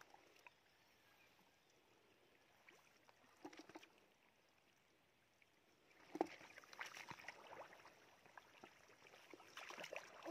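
Hands groping and splashing in shallow muddy water: faint wet sloshing and squelching. It is nearly silent for the first half, and irregular splashes start about six seconds in.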